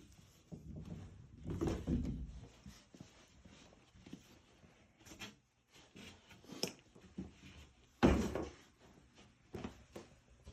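Sheet of drywall being handled and fitted into place after cutting: scattered knocks, scrapes and thumps, with one louder thump about eight seconds in.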